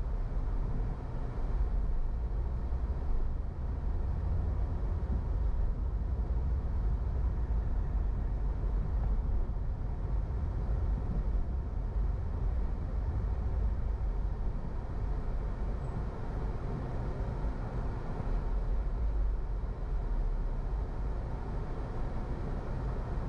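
Car driving on city streets: a steady low engine and road rumble with tyre noise.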